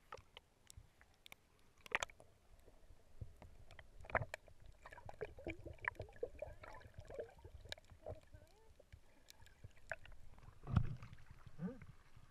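Muffled water sound picked up by an underwater action camera while snorkeling: scattered clicks and knocks with gurgling, and a louder low thump about eleven seconds in.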